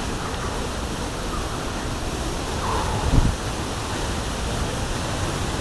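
Ponytail Falls pouring, a steady rush of falling water close by, with a brief low thump about three seconds in.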